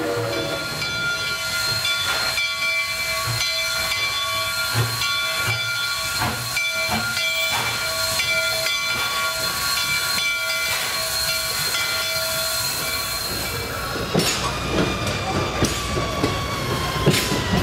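Steam locomotive passing close by with steam hissing and a steady high squeal, then passenger coaches rolling past with their wheels clicking over the rail joints in the last few seconds.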